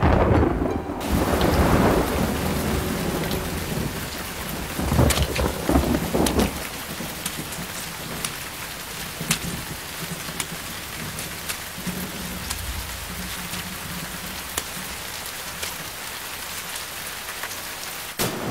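Thunderstorm sound effect: two rolls of thunder in the first seven seconds, then steady rain hissing with scattered sharp ticks.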